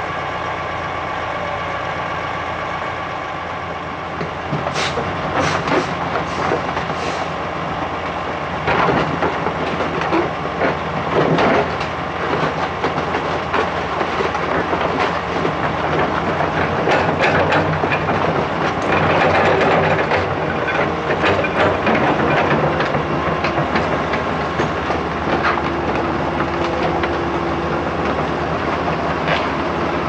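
Daewoo 175 LCV tracked excavator's diesel engine running, with its steel tracks clanking and rattling in irregular knocks from about four seconds in as the machine drives off a lowloader trailer and crawls over mud.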